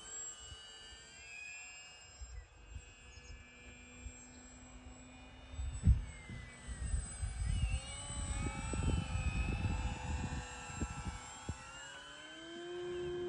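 Electric E-flite Maule M-7 1.5 m RC model plane flying past: the motor and propeller whine, its pitch sliding up and down with the passes and throttle changes. Wind buffets the microphone in gusts, hardest about six seconds in.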